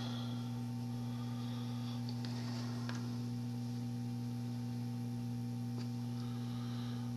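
Steady low electrical hum of mains type from the repair bench, with a few faint light ticks.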